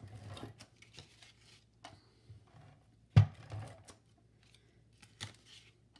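A tape runner being worked along the edges of cardstock: scattered light clicks and paper rustles, with one sharp knock a little past three seconds in.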